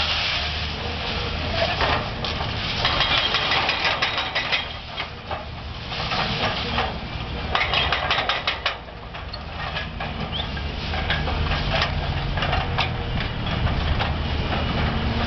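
A heavy engine running steadily, with clusters of sharp cracks and knocks over it, twice in quick runs.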